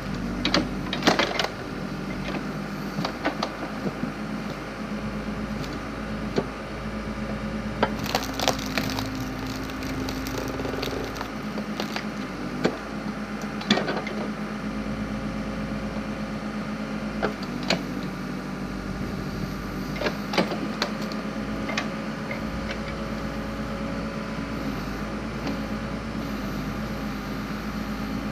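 Backhoe engine running steadily while a backhoe-mounted log splitter forces through logs. The wood gives sharp cracks and splintering snaps again and again, in clusters near the start, about eight to nine seconds in, and around thirteen to twenty-one seconds in.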